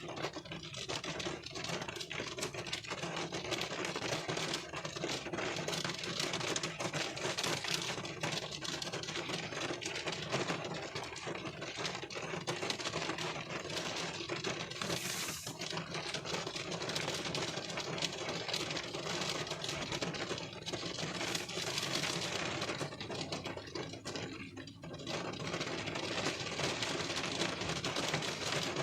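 Rain pattering steadily on a car's windscreen and body, heard from inside the car as a dense, even rattle of countless drops.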